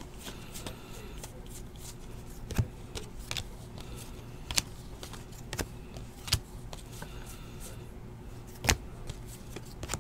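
Donruss basketball trading cards being flipped through by hand, card slid behind card, with a handful of short, sharp clicks at irregular intervals as the card edges snap; the loudest comes near the end.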